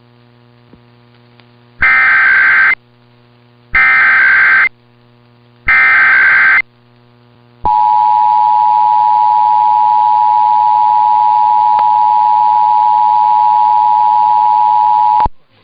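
Emergency Alert System test tones: three short bursts of SAME header data, each just under a second long and about two seconds apart, then the two-tone EAS attention signal held steady for about seven and a half seconds before cutting off sharply.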